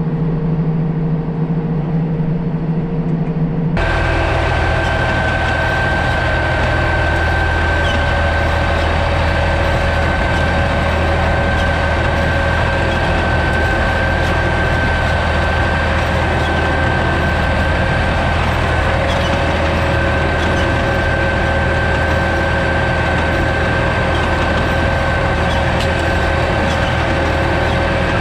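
Fendt 211P vineyard tractor's diesel engine running steadily while it pulls a Spedo Dual weeder with powered discs through the vine rows. About four seconds in, the sound changes abruptly to a fuller engine noise with a steady high whine, which holds unchanged from then on.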